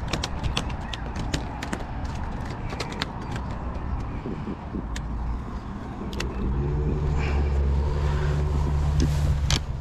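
A run of sharp clicks and taps in the first few seconds, then a steady low engine hum that starts about six seconds in, is the loudest thing here, and stops about three seconds later.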